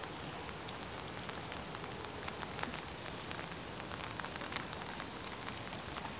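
Steady rain falling, with many small raindrop ticks throughout.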